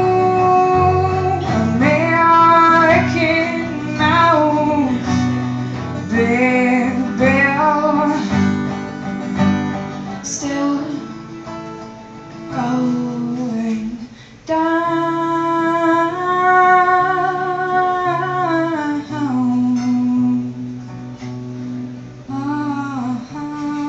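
A live song: a woman singing long held notes with vibrato over acoustic guitar. The voice breaks off briefly about fourteen seconds in.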